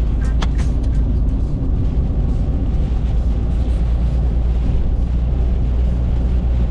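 A car driving along, with a steady low engine and road rumble.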